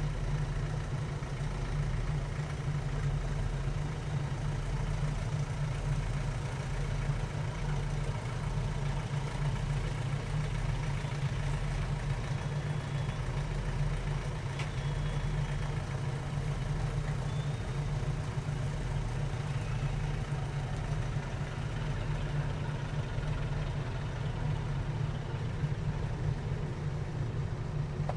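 A steady, low engine hum, like an engine idling, with a slight pulsing throb in the bass. It does not change throughout.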